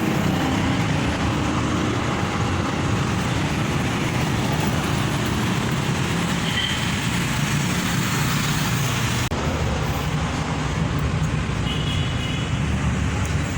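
Steady road traffic noise from vehicles passing on a highway, a continuous rumble and tyre roar.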